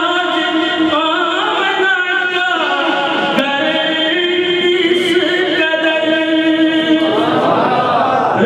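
A man's solo voice chanting melodically into a microphone, holding long steady notes joined by sliding, wavering ornaments, in the style of devotional Islamic recitation.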